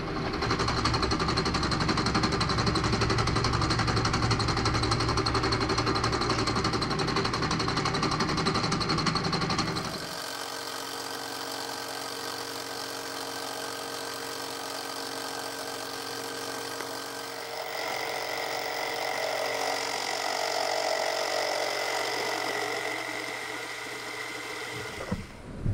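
Milling machine spindle running a single-point fly cutter with a high-speed-steel bit through a facing cut on a steel bar, the interrupted cut giving a fast, dense knocking chatter. About ten seconds in the cutting noise drops to a quieter, steadier running hum, swelling a little again with a high tone later on.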